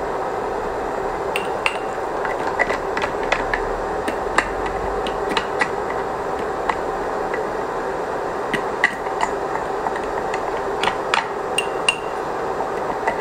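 Pot of sinigang broth at a rolling boil: a steady hum with irregular sharp ticks and pops scattered through it.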